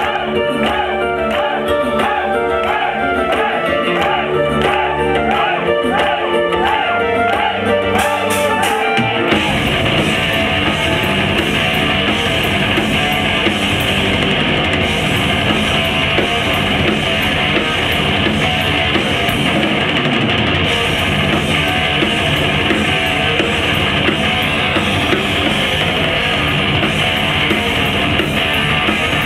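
Heavy metal band playing live with distorted electric guitars and drum kit. It opens with a lighter melodic passage of held notes and a repeating figure, and the full band crashes in about nine seconds in.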